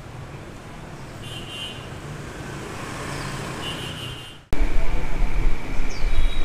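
Street traffic: a car and motorbikes passing, the noise building over the first few seconds, with two short high chirps. About four and a half seconds in it cuts abruptly to a much louder, steady low rumble with a held high whine.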